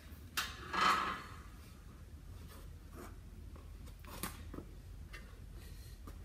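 Faint handling noises in a small room: a sharp click about half a second in, soft footsteps on a rubber gym floor, and a light clunk a little after four seconds as a dumbbell is taken from its rack.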